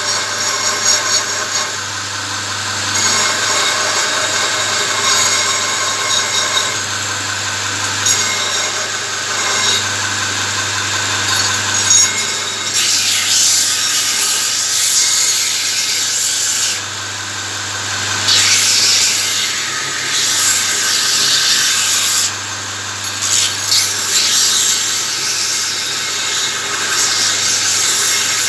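Electric belt grinder running with a steady motor hum while a forged steel spearhead is ground against its abrasive belt. The rasping grind comes in passes of a few seconds each and grows louder in the second half.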